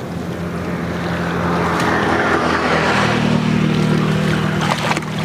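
Motorboat engine running steadily on the water, getting louder about halfway through.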